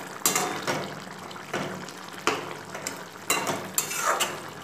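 Metal spatula scraping and knocking against a metal kadai as a thick fish curry is stirred, several short clicks over the wet sloshing of the curry.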